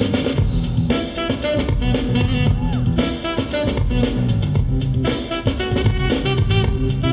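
Music with a drum-kit beat and melody instruments: the playback track for a breakdance routine.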